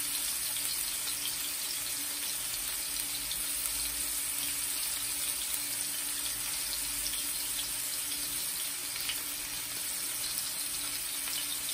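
Beef slider patties sizzling steadily in hot fat in a frying pan, with faint crackles through the hiss. A faint steady hum sits underneath.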